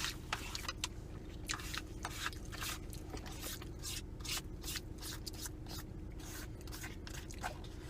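Close-miked chewing and crunching of deep-fried food such as tater tots, with many short crisp crunches and small scraping sounds, over a faint steady hum.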